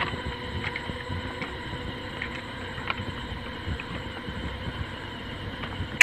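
Footsteps on railway sleepers and ballast, heard as scattered light ticks and crunches, over distant highway traffic and a steady faint hum.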